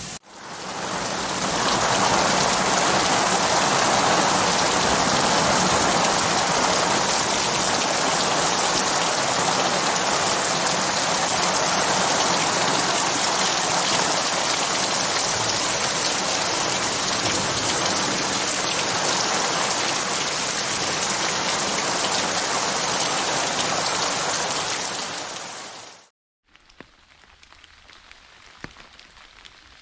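Steady rain falling, a dense even hiss that fades in at the start and fades out near the end. After a brief silence a much quieter rain begins, with scattered separate drops.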